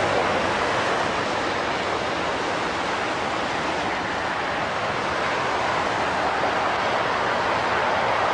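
Steady roar of freeway traffic passing below, an even rushing noise with no distinct vehicles standing out.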